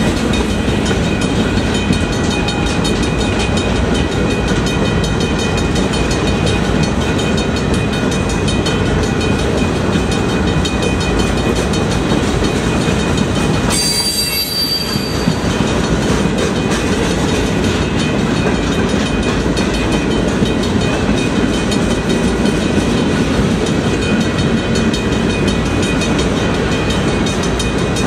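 Freight cars of a long train rolling past: a loud, steady rumble and clatter of steel wheels on rail, with a thin, high-pitched wheel squeal over it. The noise dips briefly about halfway through.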